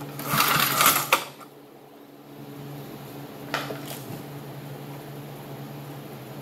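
Recoil starter rope pulled on a vintage Briggs & Stratton 3 hp flathead engine: a short whirring burst of cranking that does not catch, ending in a clack as the handle snaps back. A single faint click follows a few seconds later, over a steady low hum.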